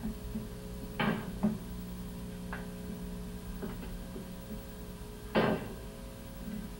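Mallet blows while laying wood plank flooring, knocking the boards tight and striking a flooring nailer: about five separate sharp knocks, the loudest about five seconds in, over a steady hum.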